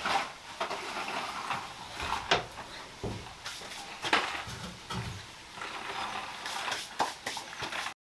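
Knocks and clanks of a metal smoker cabinet being worked by hand, its door swung shut, as separate sharp hits a second or two apart. The sound cuts off suddenly near the end.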